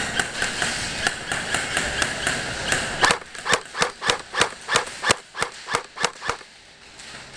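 Airsoft guns firing: a fast, dense run of shots for about three seconds, then single shots about three a second for three more seconds, stopping about a second before the end.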